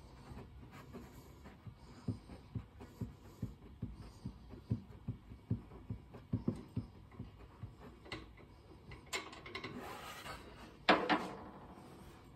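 A hand tool clicking in a steady rhythm, about two or three clicks a second, as the oil-tank drain plug of a Harley-Davidson Fat Boy is worked loose. Then comes a short rushing noise and a sudden loud clatter near the end.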